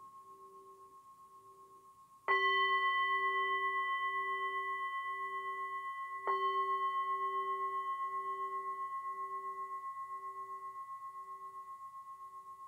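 Hand-held metal singing bowl gently tapped twice with its beater, about two and six seconds in. Each strike rings out as a clear, sustained tone with a slow, even wavering pulse and fades slowly. The ring of an earlier tap is still dying away at the start.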